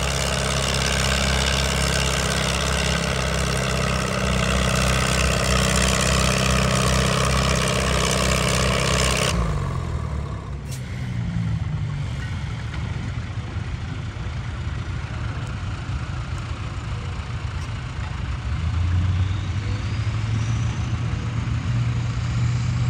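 Antique tractor engine running steadily under load while pulling a weight-transfer sled. It is loud for about the first nine seconds, then drops suddenly to a quieter, more distant drone that rises slightly near the end.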